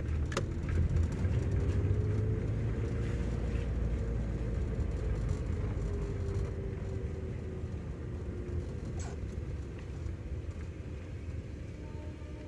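Car interior while driving: steady low engine and road rumble, with a faint engine note that drifts slowly up and down in pitch. A couple of faint clicks sound, one near the start and one about nine seconds in.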